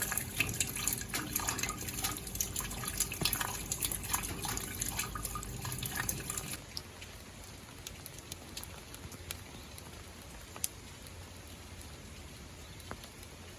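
Rain falling, with a dense spatter of close drops. About halfway through it changes abruptly to a quieter steady hiss with only occasional single drips.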